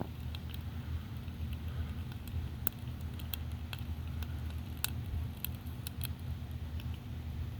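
Pot pie percolating in a small pot over a Sterno-can stove, with irregular small pops and clicks, over a steady low rumble.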